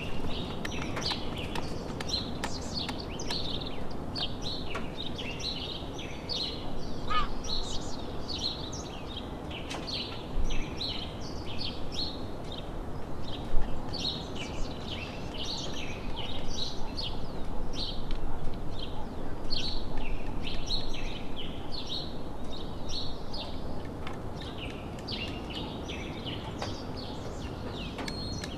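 Many birds chirping and calling without a break, a dense chorus of short high chirps. A few sharp knocks stand out, the loudest about halfway through.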